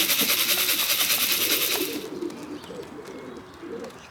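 Young racing pigeons cooing throughout. For the first two seconds a fast, even rattling, grain shaken in a feed tin, is the loudest sound; it stops suddenly.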